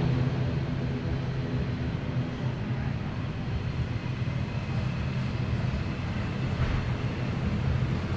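Steady low mechanical drone: a constant hum over a rumble that holds level throughout.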